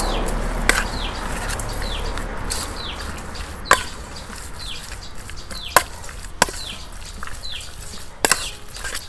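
Metal spoon clinking against a stainless steel bowl as sliced pork is tossed in its marinade, with a few sharp clinks spread out among softer scraping and squelching. Birds chirp with short falling notes in the background.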